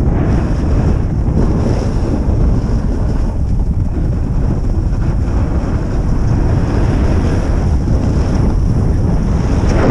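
Wind rushing over the microphone of a camera carried by a skier moving downhill, a steady loud rumble.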